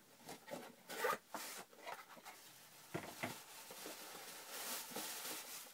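Cardboard shipping box torn open by hand: a few sharp ripping sounds as the sealed flaps come apart, then a longer rustling of cardboard near the end.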